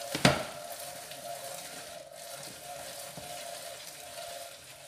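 Rotary food mill being cranked, its blade scraping and squishing boiled arbutus pulp through the finest grid to hold back the seeds: a steady wet rasping. A sharp metal clack sounds just after the start.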